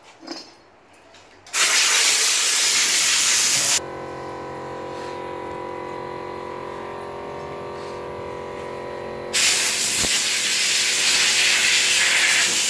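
Compressed air blowing hard in two long blasts, the first starting about a second and a half in and the second running through the last few seconds. Between the blasts a machine hums steadily.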